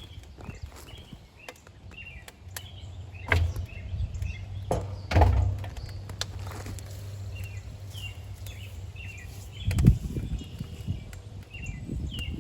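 Birds chirping, over a few knocks and thuds of wooden lumber ends being loaded into a wood-burning barrel pool heater, the loudest about five and ten seconds in. A low hum sets in a few seconds in and stops near the ten-second knock.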